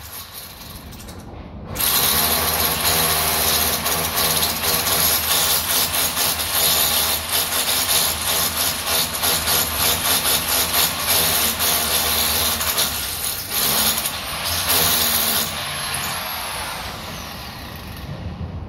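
A power drill running hard for about fourteen seconds with a fast, rattling pulse over a steady hum, used overhead on window framing; it stops about sixteen seconds in and the motor's whine falls away.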